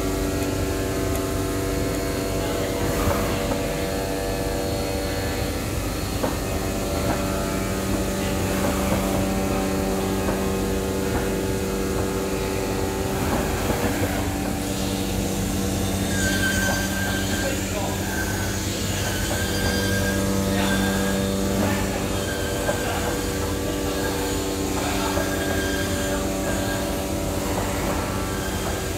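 Flatbed CNC knife cutting machine running as it cuts blind fabric: a steady mechanical hum carrying several held tones, with scattered light clicks from the moving gantry and cutting head.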